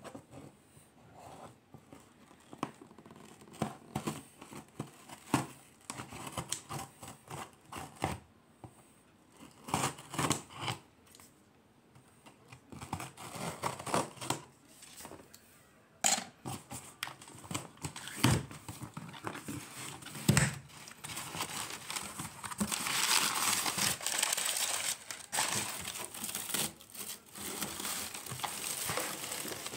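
Packing tape on a cardboard box being slit and torn open with a pointed tool, heard as scattered scrapes, rips and knocks on the cardboard. From about two-thirds of the way through comes a steadier, louder crinkling of paper packing as hands dig into the box.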